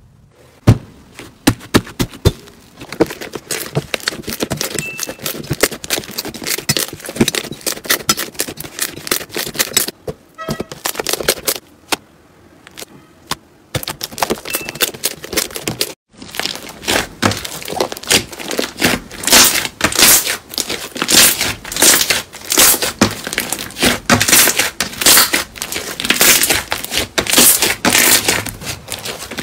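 Hands squishing, stretching and pressing slime: dense, irregular crackling pops and squelches as air pockets in the slime burst. The pops grow louder and denser in the second half.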